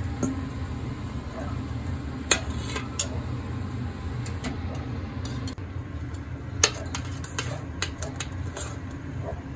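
Metal kitchen tongs clinking and tapping against a stainless steel pot and bowl as boiled cabbage is lifted out and moved, a dozen or so sharp clinks, two of them louder, about two seconds in and near seven seconds. Under them, a steady low rumble.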